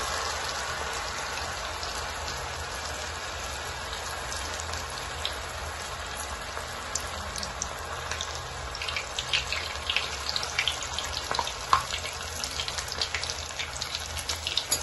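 Batter-coated spiral potato deep-frying in hot oil, just put into the pan. A steady sizzle eases over the first few seconds, then crackles and pops grow more frequent from about halfway on.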